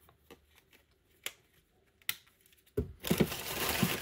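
A few small clicks of plastic phone parts being handled. Then, nearly three seconds in, loud rustling and crinkling of crumpled newspaper packing as a hand rummages through it.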